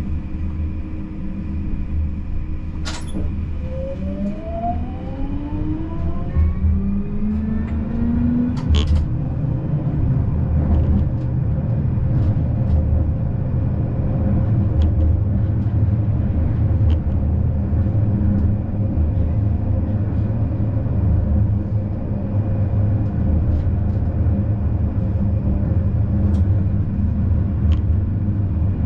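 Siemens Combino tram running, with a steady rumble. Its electric traction drive gives a whine of several tones that rises in pitch from about four to nine seconds in as the tram picks up speed. Two sharp clicks come about three seconds in and again near nine seconds.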